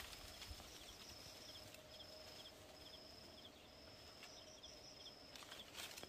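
Faint outdoor ambience with an animal calling: a high-pitched call repeated in short trills of about half a second each, with faint ticks and a faint steady hum through the middle.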